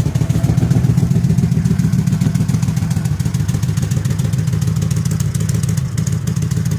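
2001 Ford Crown Victoria's 4.6-litre V8 idling with a choppy, pulsing beat and a fast ticking on top, the signs of an exhaust leak and a misfire.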